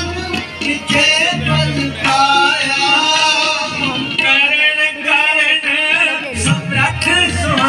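A man singing to music, with tabla drumming in the accompaniment.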